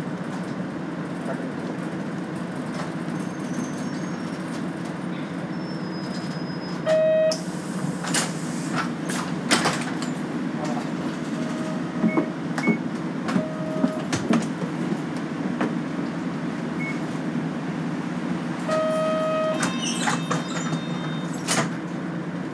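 Inside a Nishitetsu city bus: the diesel engine runs as a steady low drone. A short electronic beep comes about 7 seconds in and a longer one about 19 seconds in, with a few brief beeps between and scattered sharp clicks and knocks.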